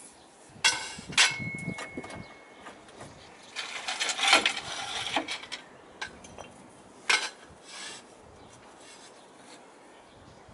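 Steel tube being handled against metal: two sharp clanks about a second in, one ringing briefly, then a second or so of scraping and one more clank.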